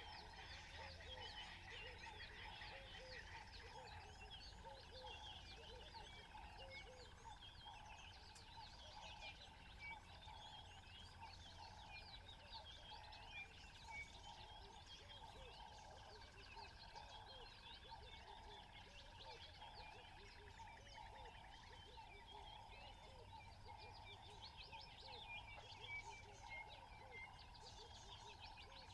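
Faint natural ambience: a dense chorus of many small chirping wildlife calls over a steady hum.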